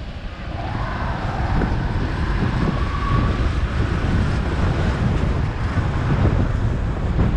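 Wind buffeting the microphone of a camera on a moving vehicle, over a steady low rumble of riding along a rough concrete lane.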